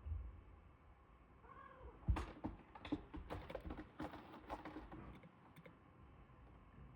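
Small birds pecking and tapping at seed on a window feeder: a run of quick, irregular sharp clicks for a few seconds. Before it come a soft thump at the start and a short faint call.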